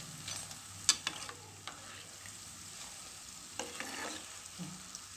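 Diamond-cut maida dough chips deep-frying in hot oil in a kadai, a steady sizzle, fully cooked and crisp. A few sharp clicks of a utensil against the pan come about a second in and again near four seconds, as the chips are stirred and lifted out.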